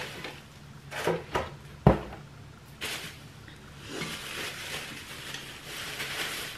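A package being handled and opened: a few light clicks, a sharp knock about two seconds in, then rustling packaging.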